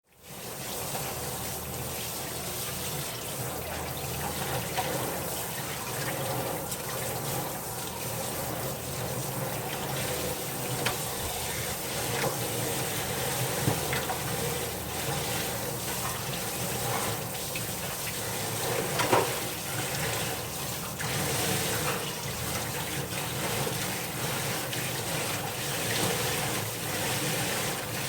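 Water running from a tap and splashing steadily, with a few short knocks.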